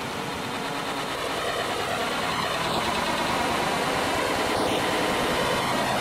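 A steady engine drone, growing a little louder about two seconds in.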